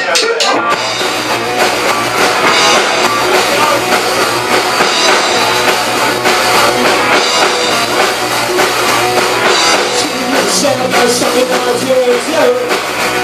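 Live amplified rock band of electric guitar, bass guitar and drum kit playing a song. A few sharp taps at the start, then the full band comes in under a second in.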